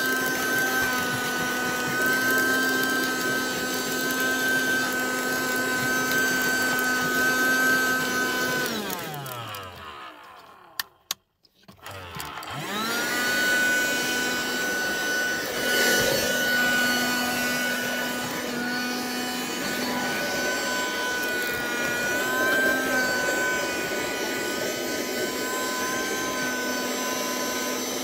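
Sakura 12V car vacuum cleaner's motor running steadily as it cleans the car's floor carpet. About nine seconds in it winds down to a stop, two clicks sound in the pause, and about twelve seconds in it spins back up to full speed and runs on, winding down again at the end.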